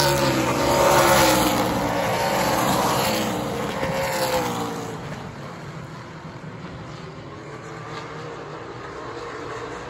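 Super late model stock cars' V8 engines racing past at full throttle, several engines rising and falling in pitch. They are loudest over the first four seconds or so, then fade as the pack moves away.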